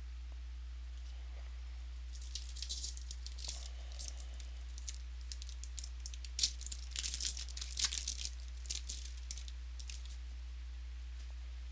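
Trading cards being handled and flipped through, with irregular rustling, flicking and crinkling for most of the stretch, over a steady low electrical hum.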